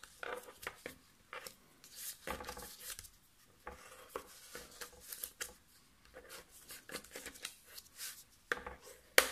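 Bone folder drawn along the folds of cardstock in a series of short papery scrapes, creasing the folds flat, with a sharp tap near the end.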